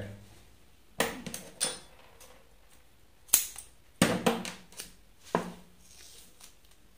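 Scattered sharp clicks and knocks of small hard objects being handled on a wooden work board while a roll of double-sided tape is picked up.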